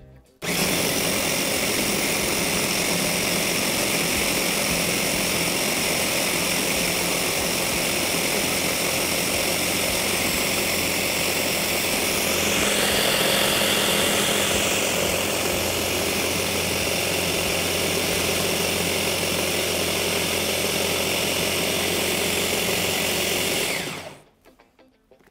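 Electric hand blender with a chopper-bowl attachment switches on and runs steadily, pureeing pancake batter. Its note shifts briefly about halfway through, and it switches off near the end.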